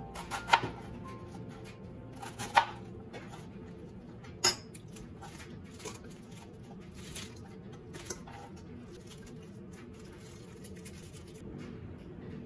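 Chef's knife chopping through a head of green cabbage onto a plastic cutting board: a few sharp chops in the first five seconds, then softer, scattered knocks as the cut pieces are handled.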